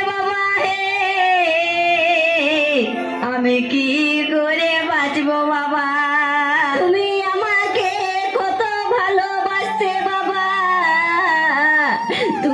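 A song playing: a singer holds long, wavering melody lines over a steady low drone.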